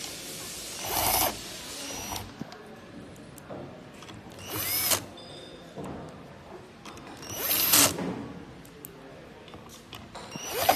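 Cordless drill-driver driving in the screws of a key-cutting machine's plastic motor cover. It runs in four short bursts about three seconds apart, each a brief whir that rises in pitch.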